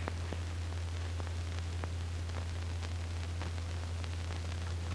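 Steady low hum and hiss with faint, scattered crackling clicks: the background noise of an old film soundtrack, with no other sound standing out.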